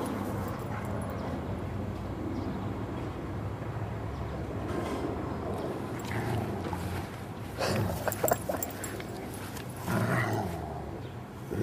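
Giant schnauzer making brief dog sounds in two short bursts, about eight and ten seconds in, over a steady low hum.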